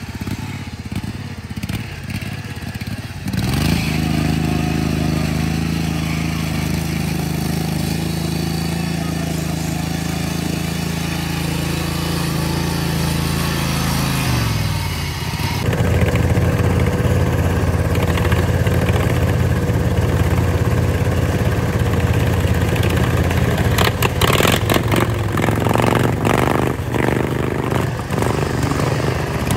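Engine of a lifted Dynamark lawn tractor running hard as the mower is driven through mud. Its pitch holds steady, drops about fourteen seconds in, then settles into a steady note again, with a few short clatters near the end.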